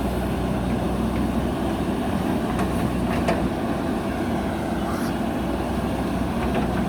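JCB backhoe loader's diesel engine running steadily, with a few faint clicks about three and five seconds in.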